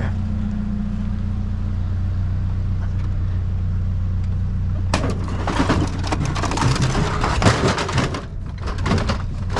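Vehicle engine idling steadily. From about five seconds in come a run of clattering knocks and scrapes of hard plastic, as discarded printers are handled.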